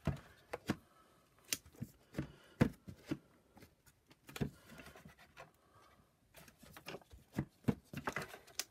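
Plastic housing parts of a Shark vacuum power nozzle being handled and pressed into place on a wooden bench: irregular clicks, taps and knocks.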